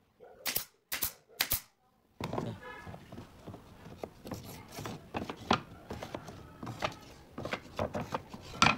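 Pneumatic nail gun firing three sharp shots about half a second apart, driving nails into a pine frame. Then wooden boards clatter and knock as they are laid into the frame, with a louder knock near the end.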